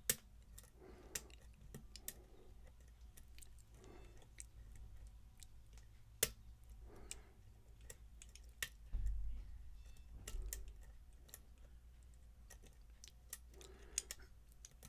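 Faint, scattered clicks of a lock pick and tension wrench working the pins of a pin-tumbler lock, with a low bump of handling noise about nine seconds in.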